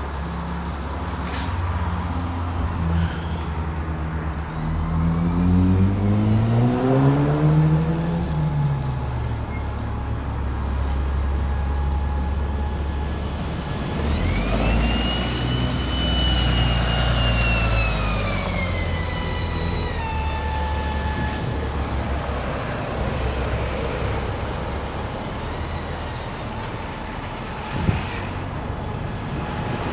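Road traffic passing: buses, a lorry and cars running by, with one heavy vehicle's engine rising in pitch as it pulls away. Midway a high whine rises, holds and falls as another vehicle goes past.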